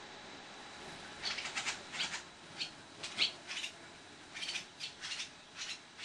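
Barn swallows twittering: a run of short, high chirps in quick irregular clusters, starting about a second in.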